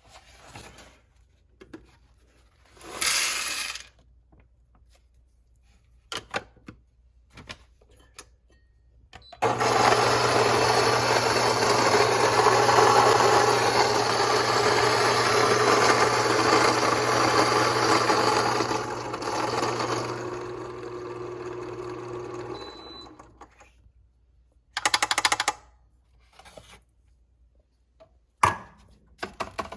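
Fellow Ode Brew Grinder's motor running and grinding coffee beans for about thirteen seconds, with a steady hum under the grinding noise. It starts suddenly about nine seconds in, gets quieter for its last few seconds and then stops. Short clicks and handling rattles come before and after.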